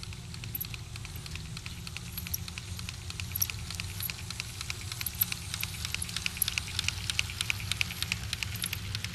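A Bachmann Shay model locomotive and its log train run along garden-railroad track with rapid small clicks of the wheels on the rails and rail joints. The clicks grow louder and closer together about five seconds in, over a low steady hum.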